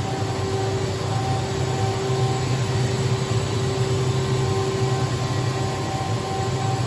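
Steady machinery hum from a powered-up OKK HM-6300S CNC horizontal machining center standing idle, its auxiliary units (chiller, coolant pumps, mist collector) running. A low hum with a couple of higher steady tones over it.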